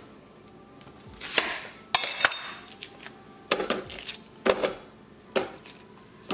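Kitchen knife and utensils knocking and clinking as chopped onions are handled: about eight irregular sharp knocks, one about two seconds in followed by a brief metallic ring.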